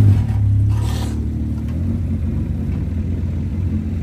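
Lowered Honda Civic driving slowly past, its engine running with a steady low drone. A short hissing rush comes about half a second in.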